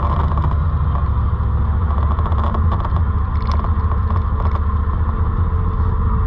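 ATV engine running steadily with a loud low rumble while riding, with scattered short clicks and rattles.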